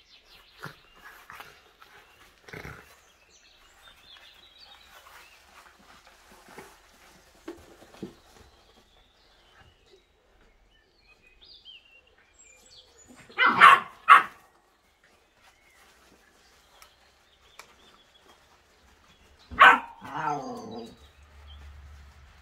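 Whippet puppy barking: two sharp barks about halfway through, then another bark near the end that trails off into a wavering whine, over faint scuffling of puppies at play.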